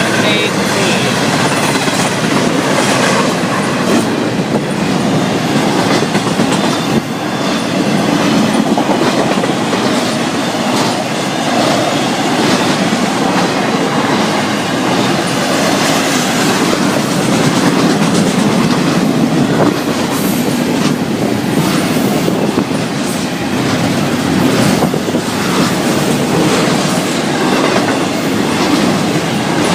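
Florida East Coast Railway freight train's cars rolling past at speed: a steady, loud rumble of steel wheels on rail with a running clickety-clack of wheel clicks.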